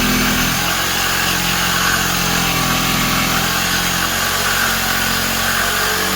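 Electric power saw running steadily as it cuts through a wooden cabinet panel.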